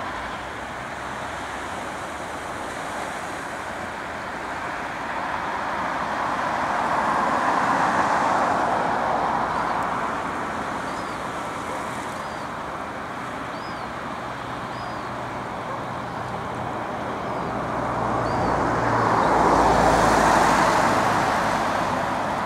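Road traffic: a steady hiss with two vehicles passing, each swelling and fading over several seconds. The second vehicle, near the end, has a deeper rumble, like a truck or bus.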